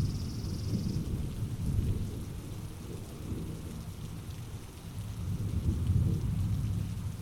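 Rain falling in a forest during a thunderstorm, with rolling thunder rumbling low, easing and then swelling again about six seconds in. A high steady buzz stops about a second in.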